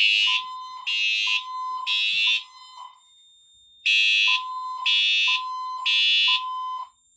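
Fire alarm notification appliances sounding the temporal-three evacuation pattern: three half-second blasts, a pause of about a second and a half, then three more. A high, buzzy horn tone is joined in each beat by a lower steady tone from a second appliance, slightly out of step with the horn. The system is in alarm after a smoke sensor was set off.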